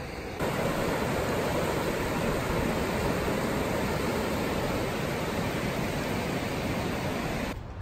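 Fast, high creek water rushing over rapids: a steady, even rush that starts abruptly about half a second in and cuts off near the end.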